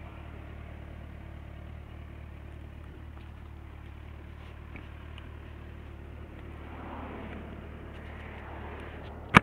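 Motorcycle engine idling steadily, a low even hum. A single sharp click at the very end.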